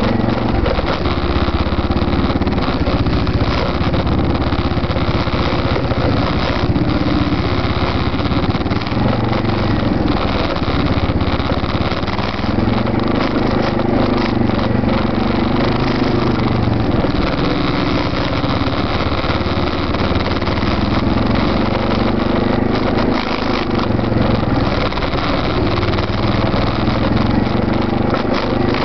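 Arctic Cat 650 ATV engines running at low trail speed, the engine note rising and falling gently with the throttle; the nearest is the single-cylinder 650 H1 carrying the microphone on its rear rack, with a 650 V2 quad following. Scattered knocks and rattles come through as it goes over the rough ground.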